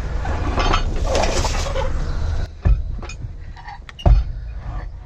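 Metal clinks and clanks from handling the transmission and clutch parts under the truck, over a steady low rumble for the first half, with two heavy thumps a little over a second apart in the second half.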